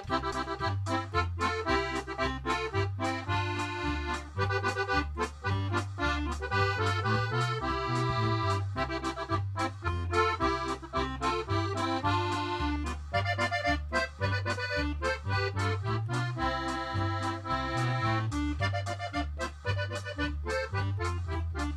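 Instrumental background music with a steady beat over a bass that alternates between two notes.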